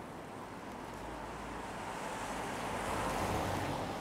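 A car passing on a wet road: tyre hiss and low engine rumble swell to a peak about three seconds in, then fade.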